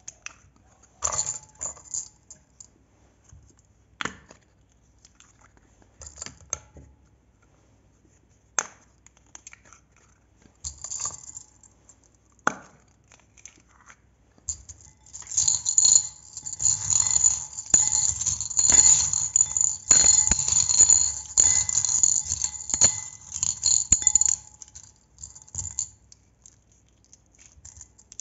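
Close-miked handling sounds from slime making. First come scattered single taps and scrapes. Then, about halfway through, a dense run of rapid small clicks and rattling lasts about ten seconds and stops abruptly.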